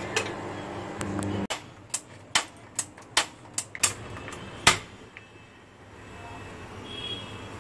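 Gas stove's push-and-turn auto-ignition knob clicking about eight times in quick, uneven succession as the igniter sparks to light a freshly cleaned burner, the last click the loudest. A steady low hum stops abruptly just before the clicks, and a faint steady hiss follows them.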